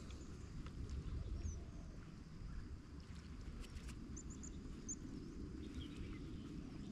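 Quiet outdoor ambience: a steady low rumble like wind on the microphone, with a few faint, very short high bird chirps about four seconds in.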